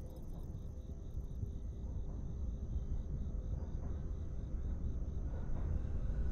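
Crickets chirping over a low rumble that slowly grows louder: a train approaching in the distance.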